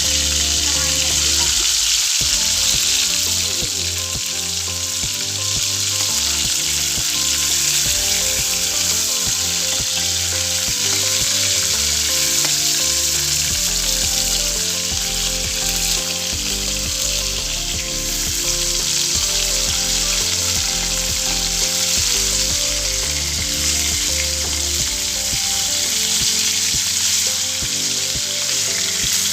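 Food frying in hot oil in a kadai: a steady, even sizzle throughout.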